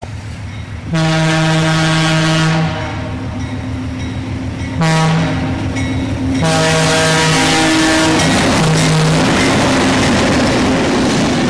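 Locomotive air horn sounding several chord blasts, long and short, the last one long, over the rumble of a train.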